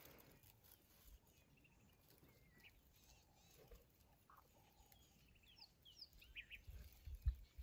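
Faint birds calling: a few short chirps and trills over quiet open-air background, most of them in the middle. A few low thumps come in near the end.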